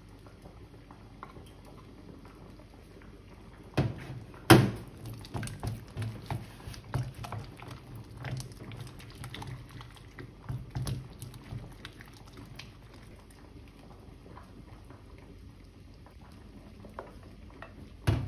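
Wooden spoon beating an egg into thick potato dough in a glass bowl: irregular knocks and scrapes of the spoon against the glass, busiest from about five to eleven seconds and quieter after. Two sharp knocks about four seconds in, the second the loudest, and another near the end.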